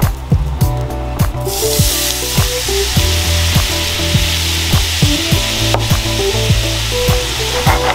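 Water splashed into a hot frying pan about a second and a half in, setting off loud, steady sizzling and hissing as it boils off: deglazing the pan to loosen the browned residue. Background music with a steady beat runs underneath.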